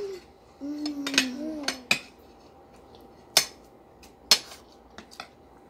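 Forks and spoons clinking and scraping against plates a handful of times, the two loudest strikes about three and a half and four and a quarter seconds in. A short hum from a child about a second in.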